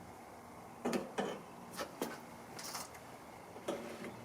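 Gas cap of a 1956 VW Beetle being fitted onto the fuel tank filler neck: several small clicks and knocks and a brief scrape as the cap with its new gasket is seated and turned.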